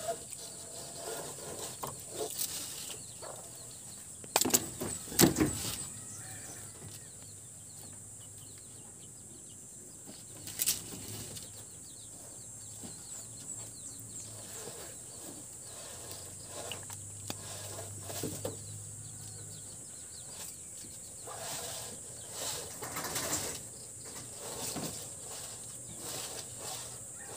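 A wire-mesh rabbit cage rattling and clattering in a few sharp bursts, loudest about four to five seconds in and again near eleven seconds, over steady outdoor ambience with a high hiss.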